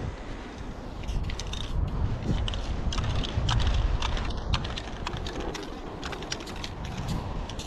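Aerosol spray-paint can hissing as it lays lines of paint on a concrete wall. Many short crunching clicks and a low rumble run underneath, the rumble heaviest in the middle.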